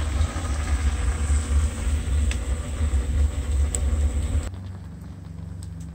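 Wood fire burning hard under a grill of calçots: a heavy low rumble with a few sharp crackles. About four and a half seconds in the rumble drops away to a quieter, steadier hum.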